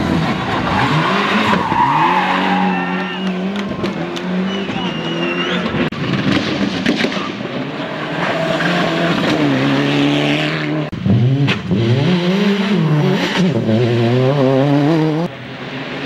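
Turbocharged four-cylinder rally cars at full throttle on a stage: the engine note climbs and drops again and again as the drivers shift through the gears. The sound breaks off abruptly and restarts twice as the footage cuts from one car to the next.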